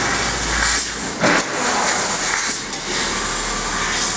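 Fibre laser cutting machine cutting 1.5 mm stainless steel sheet: a steady hiss from the cutting head. It surges briefly about a second in and again near three seconds.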